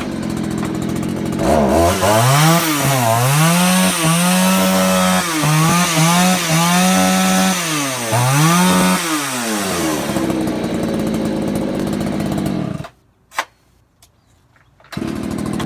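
Craftsman two-stroke chainsaw running after a fuel-leak repair and carburetor adjustment done by ear. It is revved up and down several times, then settles to a steady idle. It shuts off about thirteen seconds in and is running again near the end.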